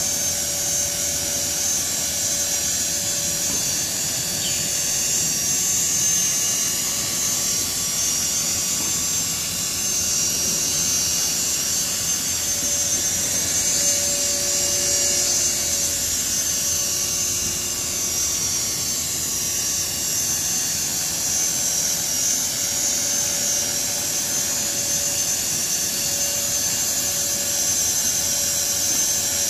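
CopterX 450 electric RC helicopter in flight: a steady high whine from its motor and drive gears over the rush of the spinning rotor blades.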